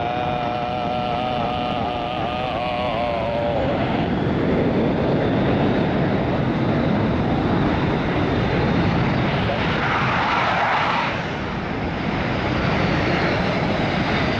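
Blue Angels F/A-18 Hornet jet engines running at takeoff power with afterburner as the jets roll down the runway in pairs. A wavering whine rides on top for the first few seconds, and the noise grows louder from about four seconds in.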